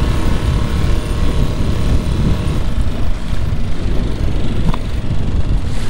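Small outboard motor running as an inflatable dinghy moves across the water, with heavy wind buffeting the microphone as a steady rumble.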